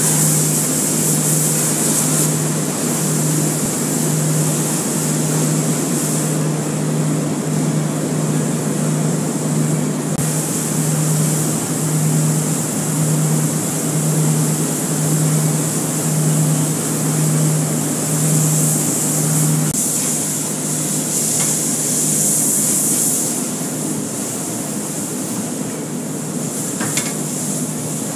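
Car-wash pressure wand spraying foaming prep soap onto a car: a steady, loud hiss of spray over a low hum. The hum drops away about twenty seconds in, where the spray carries on.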